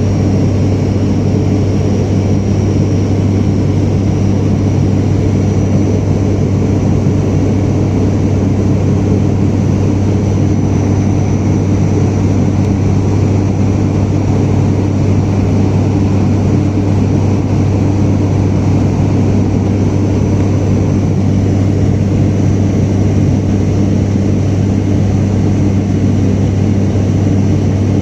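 Steady engine and airflow noise inside an airliner's cabin in flight: a constant low drone with a rushing hiss over it and a faint high whine.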